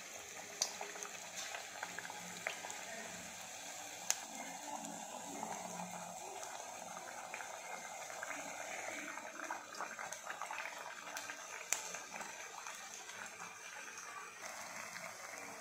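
Dough discs deep-frying in hot oil in a kadai: a steady sizzle and bubbling, with a few sharp clicks.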